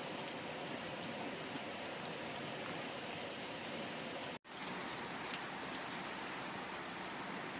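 Steady patter of falling water with scattered drip ticks, the sound of rain. It cuts out for an instant a little past four seconds in.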